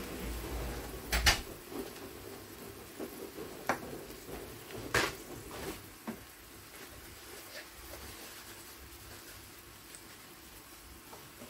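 A few sharp knocks and clatters of kitchen handling, the loudest about a second in and another about five seconds in, then it goes quiet.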